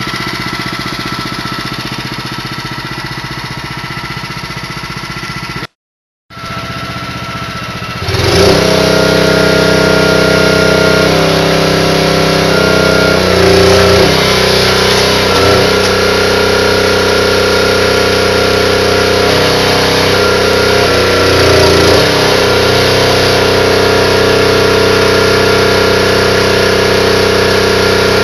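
Small gasoline engine of a hydraulic log splitter running steadily. After a brief dropout about six seconds in, it runs much louder from about eight seconds on, with its pitch shifting several times as the ram pushes the wedge into a pine round and splits it.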